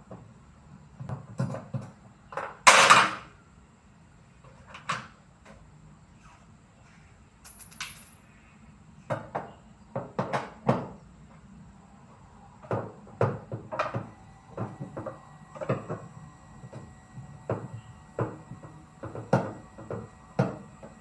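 Irregular knocks, clicks and clatter of tools and machine parts being handled during repair work, with a short, louder scraping rasp about three seconds in.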